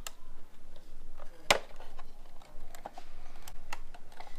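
Plastic lens clips on a Jeep Wrangler JL instrument cluster being worked loose by hand: a series of sharp, irregular plastic clicks and snaps, the loudest about a second and a half in.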